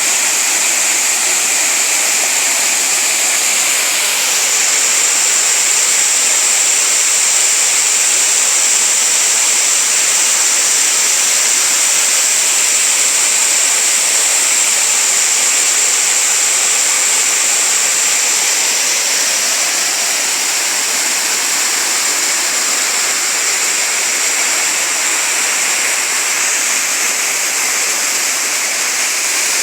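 Waterfall: water pouring steadily over rocks into a stream, a constant loud rushing hiss.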